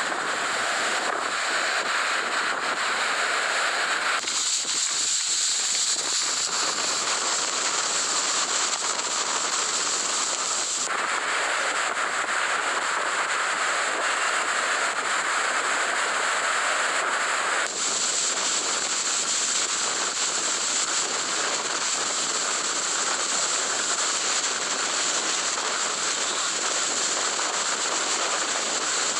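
Hurricane-force wind and driving rain making a loud, constant rushing noise, with wind buffeting the microphone. The tone of the noise shifts abruptly about four, eleven and eighteen seconds in.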